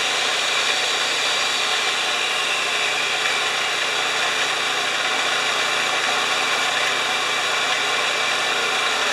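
Homelite 3000-watt portable generator running steadily at constant speed, back in running order once a bad spark plug connection was cured.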